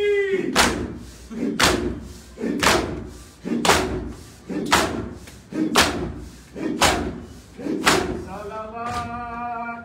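Crowd of mourners doing two-handed chest-beating matam in unison: the slap of many palms on bare chests lands together about once a second, nine times, with crowd voices between the strikes. A man's sung noha line comes in near the end.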